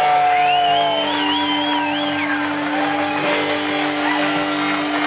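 Electric guitar holding one sustained note while a high squealing line slides up, wavers in pitch for about two seconds and falls away.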